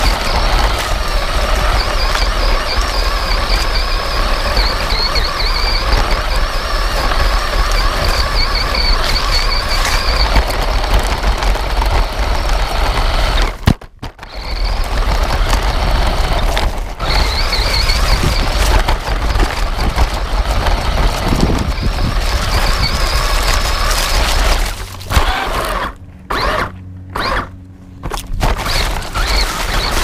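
Electric motor and gears of a 1/18-scale 4WD RC truck whining, with the pitch rising and falling with the throttle as it drives over gravel and grass. It is heard up close from a camera mounted on the truck. The motor cuts out briefly about 14 seconds in, then stops and starts several times near the end.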